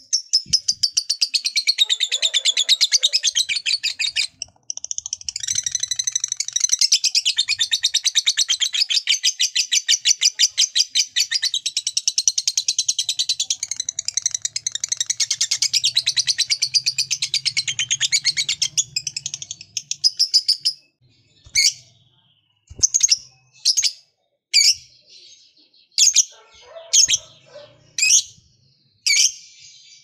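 Lovebird singing the long 'ngekek panjang' chatter, a very rapid, high-pitched, unbroken trill that runs about twenty seconds with one brief break about four seconds in. It then gives way to single sharp chirps about once a second.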